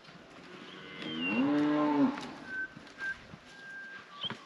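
A cow mooing once: a single long call of about a second whose pitch rises at the start and falls at the end.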